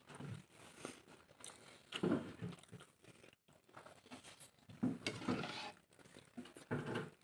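A person eating close to the microphone: irregular chewing and crunching of a mouthful of food, louder around two and five seconds in.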